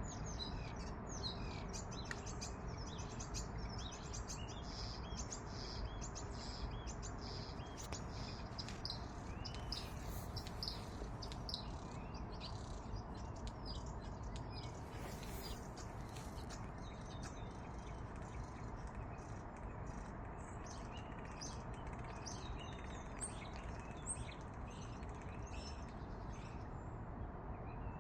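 A bird chirping in quick runs of short, high chirps, over a steady background hiss.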